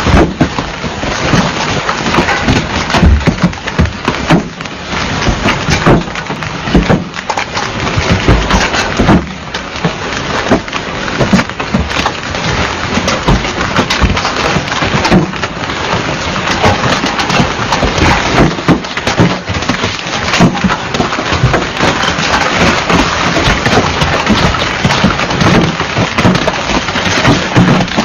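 Hail and heavy rain pelting a car, a dense, irregular rattle of hard hits over a steady rush of rain, with low thuds throughout.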